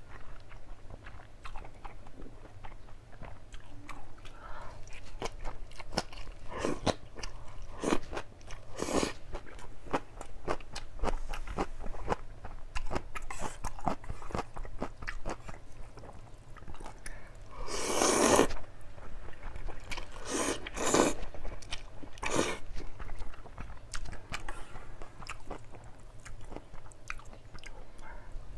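Close-miked chewing and biting of a jjajang ramyeon meal: a steady run of small wet mouth clicks. Several louder, longer sounds stand out, the biggest a little past halfway.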